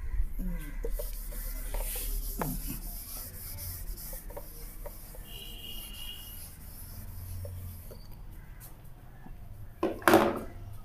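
Writing strokes scratching and rubbing on a writing surface, as a word is written out by hand, with a short high squeak about five and a half seconds in.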